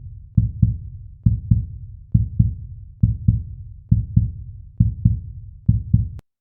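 Heartbeat sound: low double thumps in a lub-dub rhythm, about seventy beats a minute, that stop abruptly just before the end.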